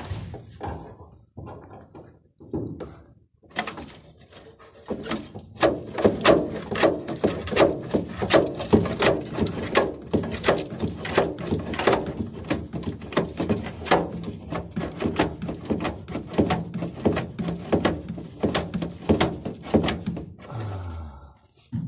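A hand grease gun is being pumped into a grease fitting on a combine harvester. After a few scattered knocks, a fast, even run of clicking strokes starts about five seconds in, roughly three a second, and carries on until near the end.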